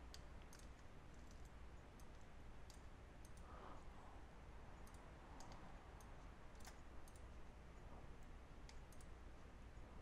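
Faint computer mouse clicks, a dozen or so scattered irregularly, as items are picked from dropdown lists, over a low steady hum.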